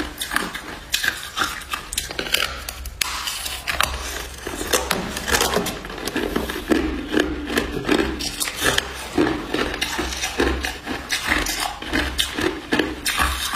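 Hard clear ice crunching as it is bitten and chewed: a dense, irregular run of sharp cracks and crunches with no pause.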